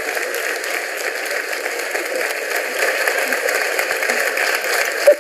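Audience applauding steadily, a dense even clatter of many hands, with one brief louder sound near the end.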